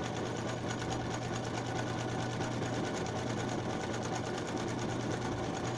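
Electric sewing machine running steadily at speed, sewing a zigzag stitch: a rapid, even needle clatter over the steady hum of its motor.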